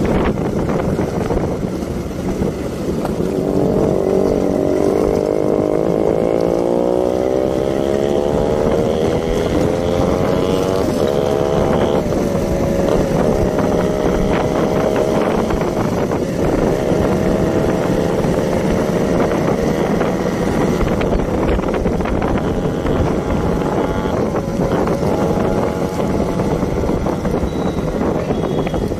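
Motorcycle engine running under way, heard from the saddle, with wind on the microphone. The engine note rises steadily for several seconds, breaks off about eleven seconds in, then climbs slowly again and holds.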